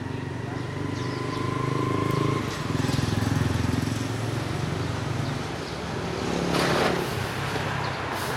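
A motor vehicle engine running, its hum shifting about two and a half seconds in, with a short loud hiss near the end.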